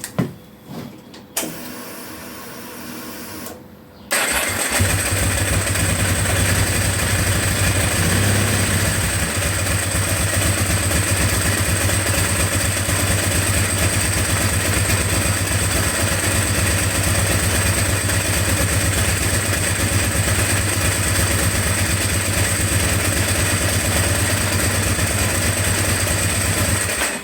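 Ducati 749 L-twin engine started after a short whirr, then idling steadily for over twenty seconds.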